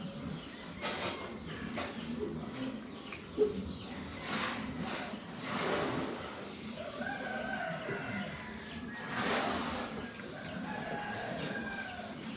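Farmyard chickens clucking, with roosters crowing in long held calls near the middle and toward the end, among several shorter, harsher calls.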